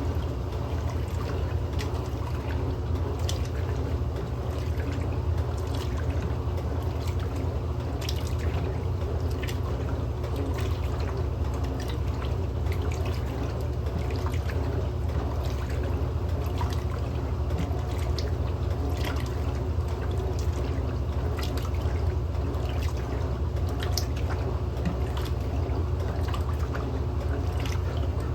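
Electrolux LM08A top-loading washing machine running a towel load: a steady low hum with water splashing, dripping and trickling throughout.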